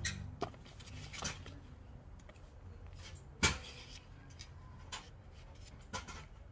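Eating sounds: scattered sharp clicks and taps as food is pulled apart by hand on a plate and chewed, about six in all, the loudest about three and a half seconds in, over a low steady hum.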